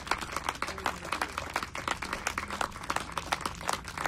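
Audience applauding: many hands clapping at an irregular, dense rate.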